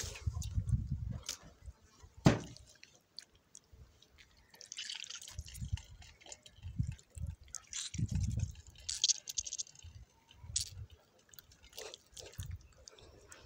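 Water dripping and splashing in a steel bowl as hands rinse and squeeze chicken gizzards, with wet squelches, a sharp click about two seconds in and intermittent low bumps.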